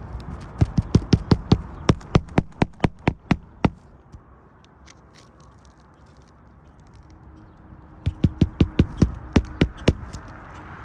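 Hammer blows on an asphalt shingle roof, about three to four strikes a second in two runs with a pause between, as shingles are nailed during a repair.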